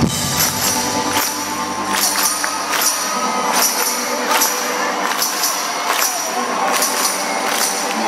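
Live band music recorded from the audience, with a steady tambourine-like beat of about two strikes a second. The bass drops out about four seconds in, leaving the percussion and the higher parts.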